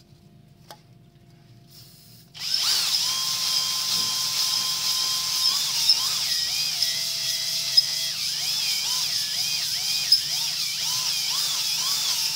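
Electric drill spinning a stone cylinder hone inside a cylinder bore of a Peugeot 1.2 PureTech three-cylinder engine. It starts about two seconds in and runs steadily with a high whine that wavers up and down in pitch as the stones grind the wall. The bore is being honed to a cross-hatch for new piston rings.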